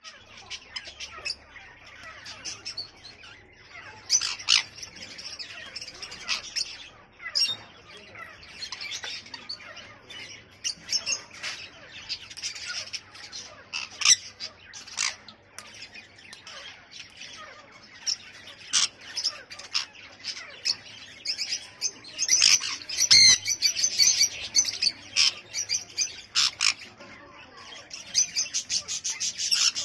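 Caged conures calling: repeated short, sharp chirps and squawks, breaking into quick runs of calls about two-thirds of the way through and again near the end.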